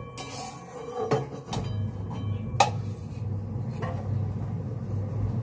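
Kitchen utensils and pots clinking and knocking on a counter, about three sharp knocks with a short ringing after them, over a steady low hum.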